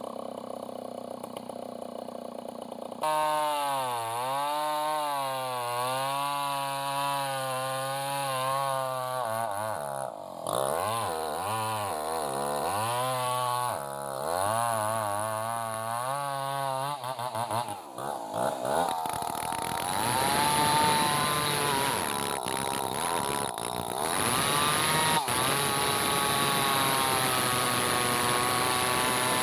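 Two-stroke chainsaw comes in loud about three seconds in, its engine pitch rising and falling over and over as the throttle is worked. From about two-thirds of the way through it holds high revs, cutting steadily into a felled log.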